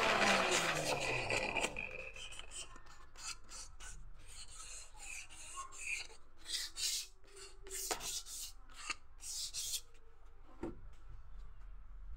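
An electric angle grinder winding down, its pitch falling and fading in the first second or two, followed by irregular short hand-scraping strokes of a small hand tool along the edge of a wooden frame.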